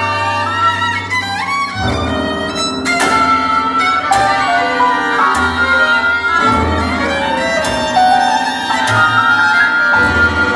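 Recorded music with a violin playing, over low held notes and a few sharp struck accents.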